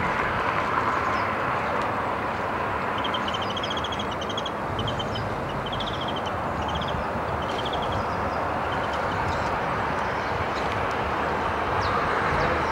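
Steady outdoor rumble and hiss, with a small bird chirping a series of short, rapid trills in the middle.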